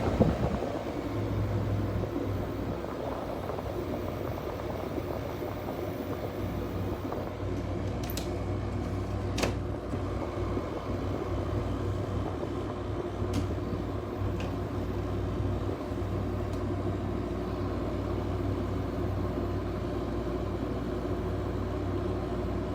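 2009 LG window air conditioner running, its compressor humming steadily and its fan blowing, with a few faint ticks.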